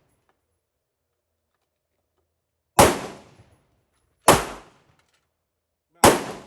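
Three pistol shots fired at a slow, uneven pace, about a second and a half apart, each a sharp crack with a short echoing tail.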